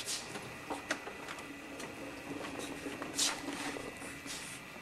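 Scattered light clicks and rustles, with a faint steady hum through the middle and a brief louder rustle a little after three seconds in.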